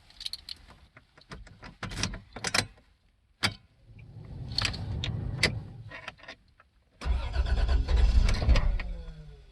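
Starter motor cranking a Toyota 3VZ-E V6 in two long attempts, after a run of sharp clicks. The engine does not catch: a hard start. The second crank ends with a falling whine as the starter spins down.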